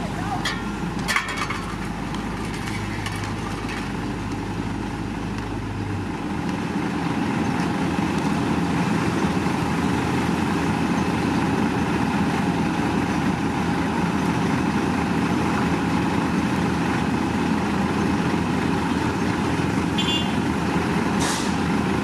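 Engines of heavy road-paving machinery running steadily. A low hum drops out about six seconds in and the engine sound grows louder, with a few sharp clicks near the start and a brief high tone near the end.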